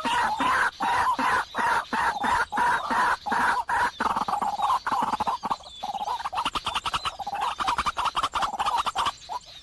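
Birds calling in a dense, rapid chatter of repeated calls that fades out near the end.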